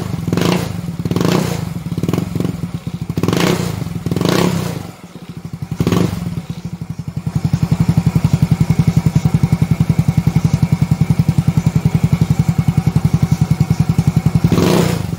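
Yamaha Mio Sporty scooter's single-cylinder four-stroke engine heard through an ORB aftermarket "chicken pipe" muffler packed with steel wool instead of fiberglass. About five quick throttle blips come in the first six seconds, then it settles into a steady, evenly pulsing idle, with one more blip near the end.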